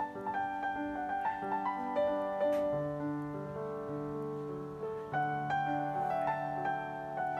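Soft instrumental background music: a piano melody of held notes over slow, changing bass notes.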